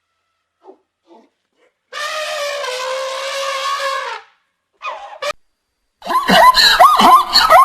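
Animal calls: one drawn-out call starting about two seconds in and lasting about two seconds, a short call near five seconds, then from about six seconds a loud, dense run of many quick overlapping cries.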